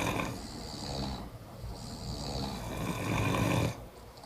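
A heavy snorer asleep without an anti-snoring mouthpiece, snoring: two long snores, the second louder and lasting about two seconds, ending shortly before the end.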